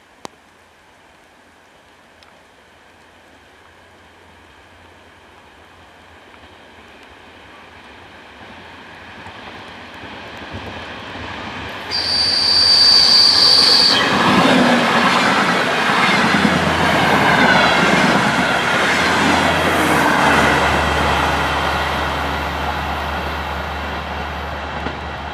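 DR1AC diesel multiple unit approaching and passing close: its sound grows steadily, it sounds a high steady horn tone for about two seconds midway, then its wheels and running gear clatter loudly past over the rails, leaving a low engine hum that fades as it moves away.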